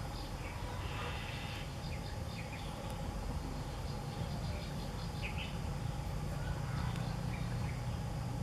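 Outdoor ambience: faint insects trilling and a few short bird chirps over a steady low rumble.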